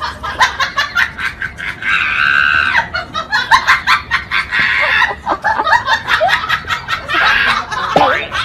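People laughing in rapid repeated bursts, with a few longer high-pitched peals.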